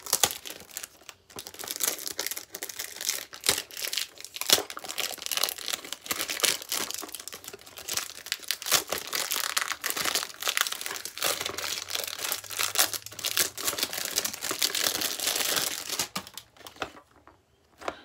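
Clear cellophane wrapping being torn and peeled off a perfume box, crinkling and crackling with many sharp cracks. It dies away near the end.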